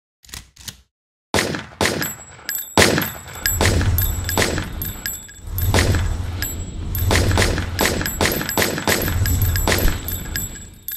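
Gunshot sound effects: two faint clicks, then a long, irregular volley of sharp shots, roughly two a second, each with a short ringing tail. A low rumble runs under the shots from a few seconds in.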